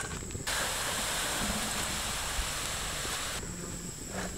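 Hot oil sizzling steadily as gram-flour sev deep-fries in the pan, a smooth hiss that starts suddenly about half a second in and cuts off shortly before the end.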